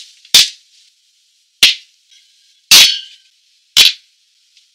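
A glass beer bottle being handled and its crown cap popped off with an opener: four sharp clicks and snaps about a second apart, the one near the middle longer, with a short metallic ring.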